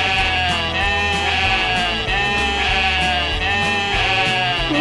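A small battery-powered toy sheep's sound chip playing an electronic sheep bleat, triggered by pressing its button. The bleat repeats about every second and a quarter, roughly four times.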